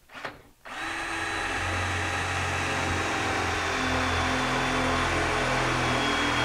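Cordless drill running steadily under load, driving a half-inch hole saw on its quarter-inch pilot bit into the sheet-metal side of an electrical enclosure. It starts under a second in with a high motor whine over a low hum.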